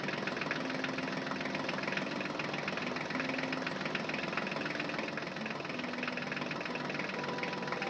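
Tractor engine running steadily with a rapid knocking chug.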